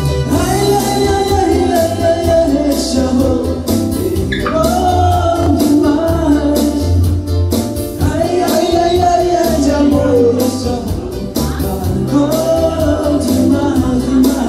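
A man singing into a microphone over amplified backing music with a steady bass line and beat. He sings in phrases with short breaks between them.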